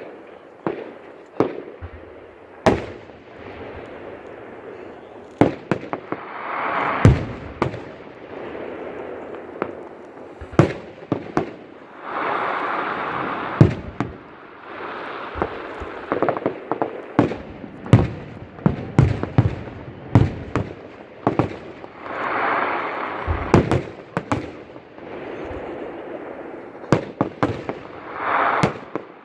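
Fireworks display: aerial shells bursting in quick, irregular succession, dozens of sharp bangs, with a few longer noisy swells lasting a second or two between them.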